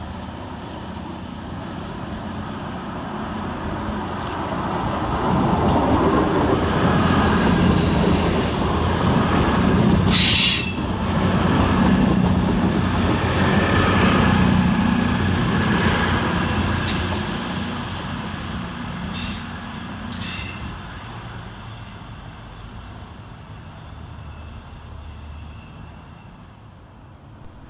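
A Cross Country Class 221 Super Voyager diesel-electric unit running past on the platform line. Its rumble grows over about six seconds and then fades, with brief high wheel squeals near the middle as it goes by.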